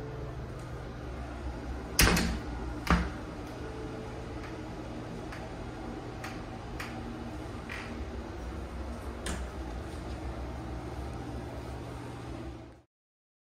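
Doors or lids being handled in a laundry closet: two sharp knocks about a second apart, then a few lighter clicks, over a steady low hum. The sound cuts off abruptly near the end.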